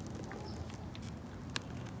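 Masking tape being peeled slowly by hand off a freshly Plasti-dipped motorcycle fairing: faint crackling with a light tick about one and a half seconds in.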